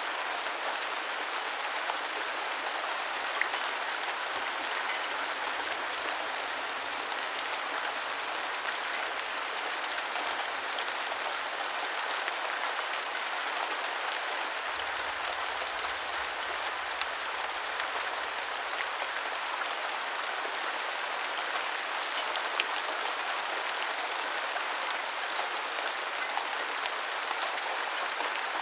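Steady rain falling as an even hiss, with a few individual drops ticking here and there.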